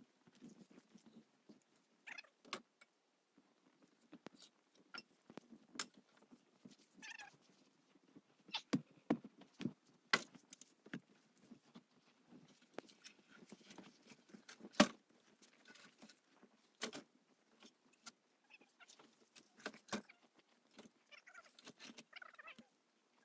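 Irregular knocks and clatter of birch firewood logs being lifted and set down on a log sled, the loudest a sharp knock about two-thirds of the way through.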